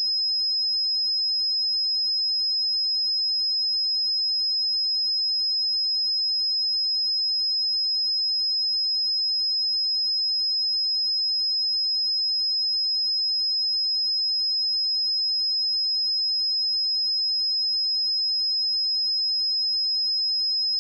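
A pure 5103 Hz sine test tone held at a constant pitch and level: a single steady high-pitched whistle with no other sound.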